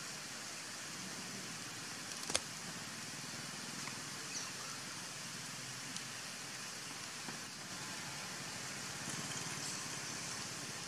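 Steady outdoor background hiss, strongest in the high range, with one sharp click a little over two seconds in and a few fainter ticks later.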